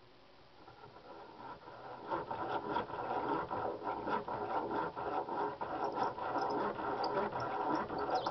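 Miller Falls egg-beater hand drill turning a 7/32 twist drill through an oak board to bore a pilot hole: a steady scratchy cutting sound with many small clicks, building up over the first two seconds.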